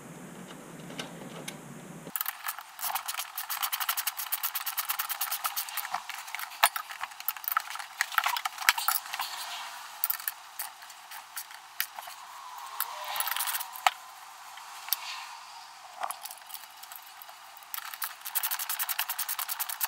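Ratchet wrench clicking in several rapid runs as the bolts of an ATV plow mount are tightened from underneath, with small metal clinks of nuts and hardware in between. The sound is thin, with no low end.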